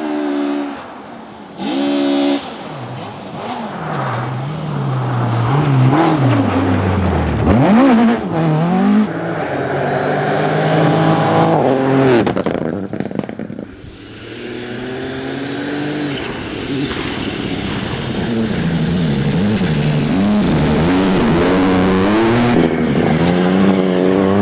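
Rally car engines at full effort, revving up and dropping again and again with the gear changes as a car drives hard past. The sound fades about thirteen seconds in, then another car comes up and revs the same way.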